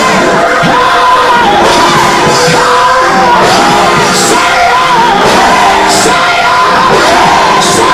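Loud gospel praise music: a woman singing and shouting into a microphone over the band, with sharp percussion hits about once a second and shouts from the congregation.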